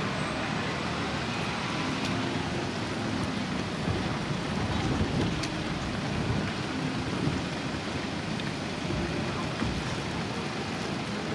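Busy city street ambience: a steady hiss of road traffic, with passing cars and a faint murmur of pedestrians, and one sharp click about five seconds in.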